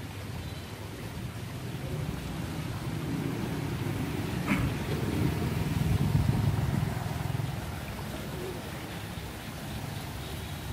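A motor vehicle passing on the street: a low rumble that builds, peaks and fades away, with one sharp click partway through.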